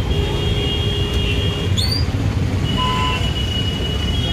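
Vehicle engines running on a busy street, a steady low rumble of idling motors and traffic with a few thin steady tones above it; a brief rising whistle-like sound about two seconds in.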